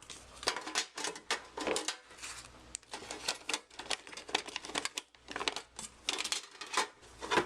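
Yu-Gi-Oh booster packs, cards and paper inserts being handled and taken out of a collector's tin: an irregular run of clicks and rustles.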